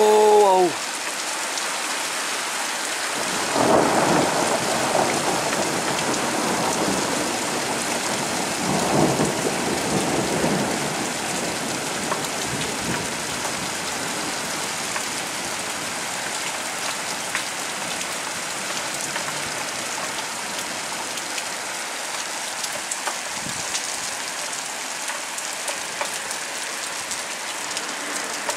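Steady heavy rain, with thunder rumbling twice: once about four seconds in and again around nine to ten seconds in.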